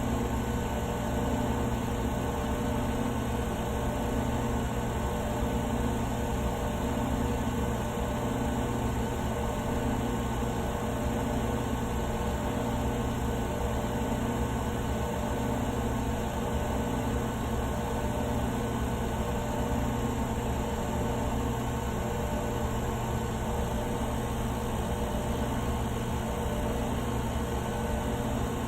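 Vacuum pump running steadily: a constant mechanical hum with an even hiss over it.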